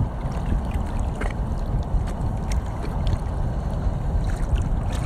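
Low rumble of wind on the microphone, with light splashing as a large redfish is held by the tail at the water's surface.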